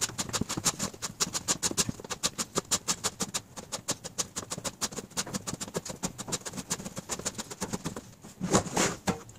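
Hands rapidly patting and pressing pizza dough flat over an upside-down aluminium pie pan, a quick even run of soft slaps several times a second. Near the end come two louder, longer handling sounds.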